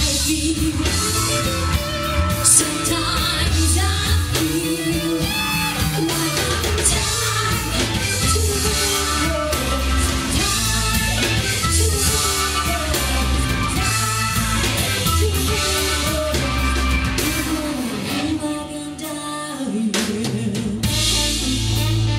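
Live rock band playing: a woman singing over electric guitars, bass, keyboard and drum kit. Near the end the bass and drums drop out for a couple of seconds before the full band comes back in.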